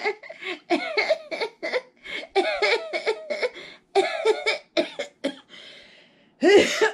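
A woman's voice making playful, wordless vocal noises and laughing in short bursts, with a breathy hiss about six seconds in and a loud vocal burst near the end.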